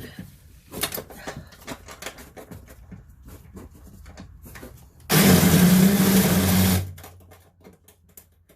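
Porter-Cable impact driver running in one burst of under two seconds about five seconds in, backing out a bolt; before it come small clicks and rattles of the socket being fitted onto the bolt.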